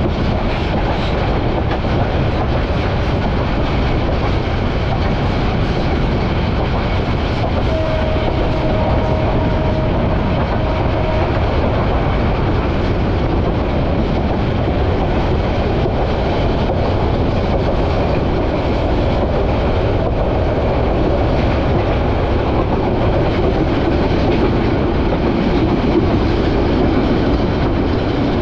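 Bangladesh Railway passenger train running at speed, heard from inside the carriage: steady loud wheel-and-rail noise with clickety-clack over the rail joints. A brief steady tone sounds about eight seconds in and lasts about three seconds.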